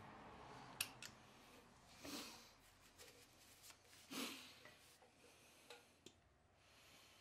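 Faint metal-tool clicks and scrapes as a small pick works at a valve stem on a Honda GL1100 cylinder head, prying off the old valve stem oil seal. A sharp click a little under a second in is the loudest, and two short scraping rustles follow around two and four seconds in.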